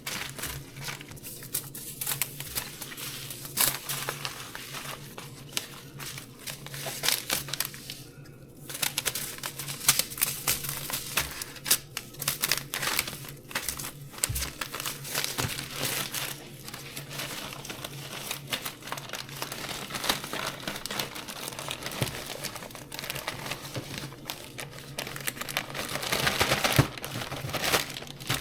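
Rustling and crinkling of seed packets being handled and sorted, with irregular clicks and crackles of paper and plastic and a brief pause about eight seconds in.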